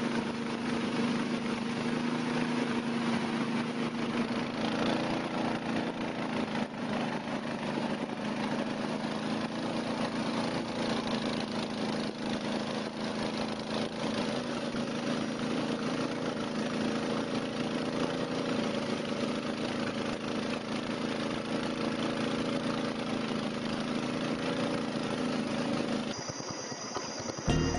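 Small motorboat engine running steadily with an even hum. It drops away near the end.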